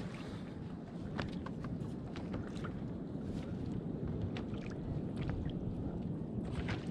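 Steady noise of water and wind around a small inflatable boat drifting at sea, with scattered light clicks and knocks.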